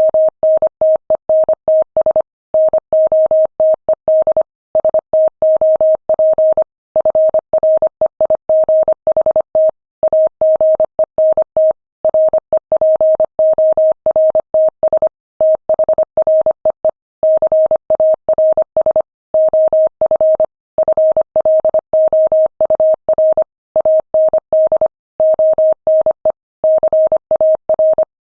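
Morse code sent at 25 words per minute: a single steady beep keyed rapidly on and off in dots and dashes, with short pauses between words.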